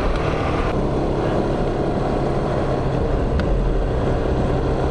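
Honda Lead 125 scooter's single-cylinder four-stroke engine running steadily while riding along at an even speed.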